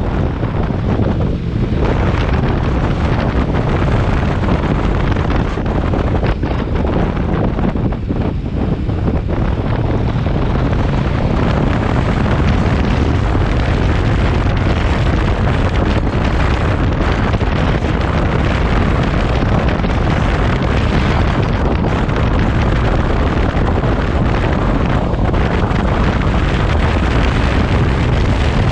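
Wind rushing and buffeting over the microphone of a motorcycle riding at around 70 km/h. The noise is loud and steady, with the machine's running sound mixed into it.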